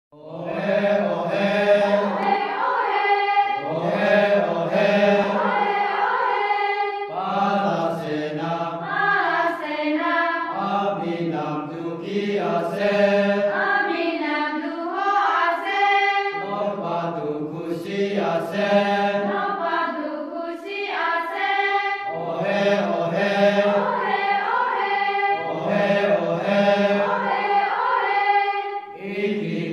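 A group of voices singing a chant-like song together, in phrases of a few seconds with short breaks between them.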